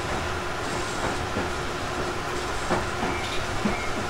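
Running sound inside the motor car of a Tobu 50050 series electric train: a steady rolling rumble with the air conditioning running and a few clacks of the wheels over rail joints. A steady high tone comes in about three seconds in.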